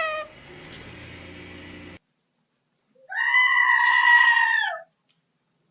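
A goat letting out one long, scream-like bleat that lasts under two seconds.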